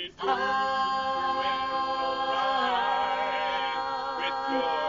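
Mixed vocal quartet of men and women singing a cappella, holding long chords in close harmony. The chord shifts about two and a half seconds in and again near the end.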